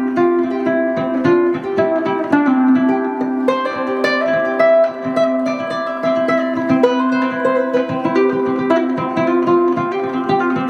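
Handmade soprano ukulele with an Adirondack spruce top and Tasmanian blackwood back and sides, played as an improvised melody of many quick plucked notes that ring into one another. Heavy added reverb.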